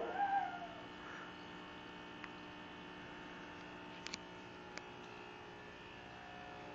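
A pug gives a short pitched vocal call, about a second long and falling slightly in pitch, at the start. After it there is a steady hum and a few faint clicks.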